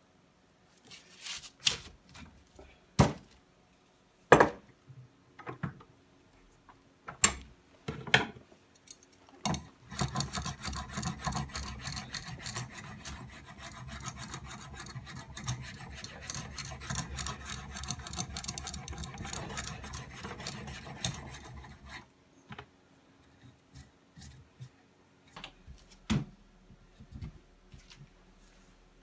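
A knife shaving a wooden mallet handle clamped in a vise: a dense run of rapid scraping strokes for about twelve seconds. Before and after it come scattered sharp wooden knocks and clicks.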